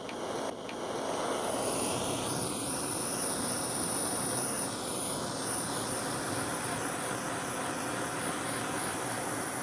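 A power tool or machine running steadily, with a thin high whine over a loud, even rushing noise that steps up about half a second in.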